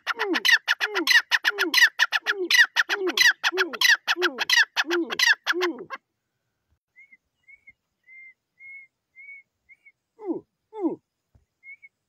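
Grey francolin calling: a loud, rapid run of harsh repeated notes lasting about six seconds. Then only faint short high notes, and two low falling calls near the end.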